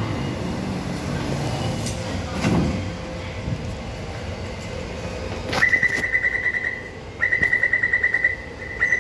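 Taipei Metro door-closing warning: a rapid high-pitched beeping in three bursts of about a second each, starting about halfway through, over the steady hum of the station.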